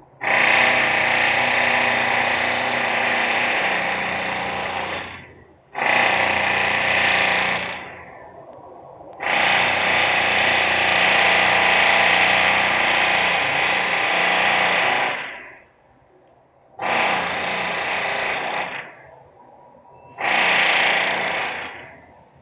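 Loud power tool running in repeated bursts of about two to six seconds, stopping briefly between them, six times in all.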